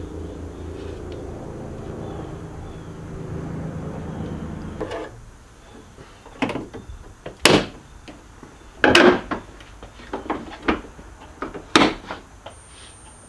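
Hood of a Jeep Wrangler being lowered and shut: several sharp knocks and clunks over the second half, after a steady low hum that stops about five seconds in.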